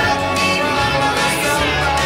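Background music: a song with a singer over a steady beat.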